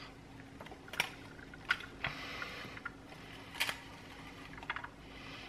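A white plastic potato ricer squeezed hard by hand, giving a few scattered faint clicks and soft creaking as cooked potato is pressed through its grid.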